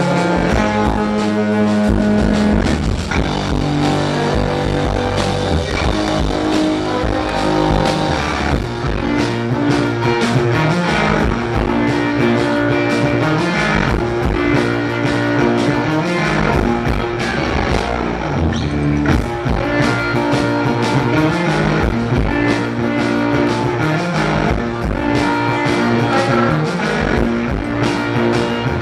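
Live blues-punk rock band playing: two electric guitars churning a repeating riff over a drum kit, with no bass. Recorded loud through a pocket camcorder's built-in microphone from the audience.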